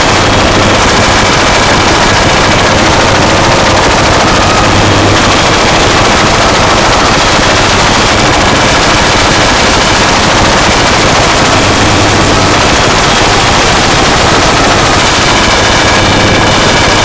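Harsh noise music: a dense, loud wall of distorted electronic static with a rapid crackling texture and a low droning hum that fades in and out.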